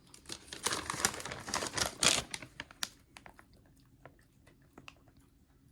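Plastic packaging crinkling and crackling for about two and a half seconds, then a few scattered sharp clicks.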